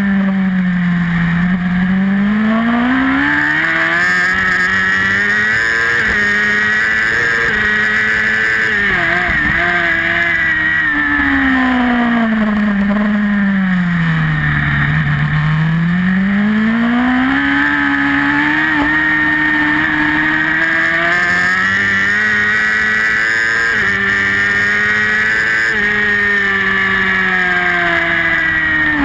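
Racing superbike engine heard from on board at full race pace. The revs climb in steps as it shifts up through the gears, then fall away twice, about a second in and again around fifteen seconds, as the bike slows for corners.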